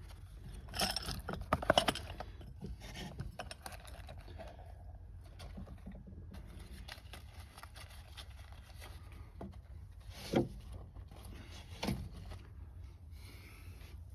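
Small objects being handled: a cluster of sharp clicks and rattles about a second in, scattered lighter clicks after, then two single knocks later on, over a low steady hum.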